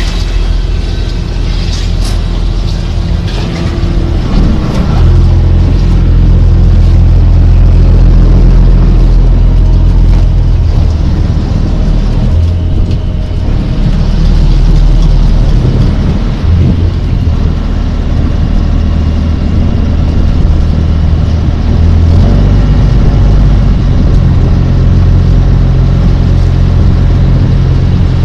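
Squid-jigging boat's engine and deck machinery running: a loud, steady low drone that shifts in tone a few times.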